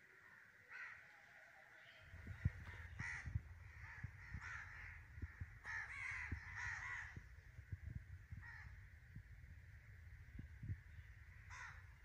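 Crows cawing several times, singly and in a cluster of calls near the middle, over a steady high hiss. From about two seconds in, a low rumble with sharp thumps sits under the calls, the loudest of them early on the microphone.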